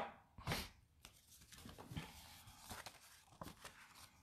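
Faint rustling and light taps of card stock and paper pieces being handled and set down on a work table, the clearest about half a second in.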